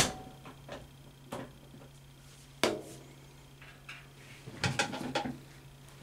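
Knocks and bumps of hands and arms against a top-loading washing machine's tub while wet laundry is pulled out of the drum: a sharp knock a little over two seconds in and a cluster of knocks near the end, over a low steady hum.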